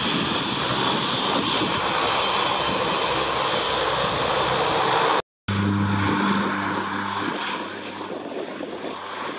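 Twin Garrett T76 turboprop engines of an OV-10 Bronco running loud as it passes close by. After a brief cut about five seconds in, the engines come back quieter with a steady low propeller hum, fading as the aircraft moves away.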